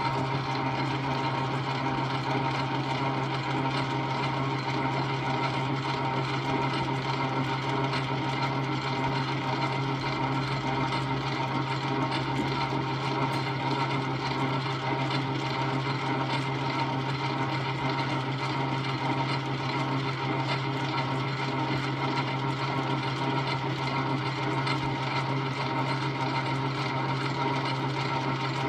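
South Bend 9-inch Model A metal lathe running steadily on its electric motor and leather flat drive belt, a constant mechanical hum with a whine of steady tones above it.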